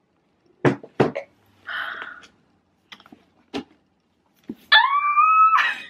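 Cardboard packaging handled as the boxed MacBook Pro comes out of its shipping carton: two sharp knocks, a short scraping rustle and a few light taps. Near the end, a woman's high, rising squeal of delight, the loudest sound.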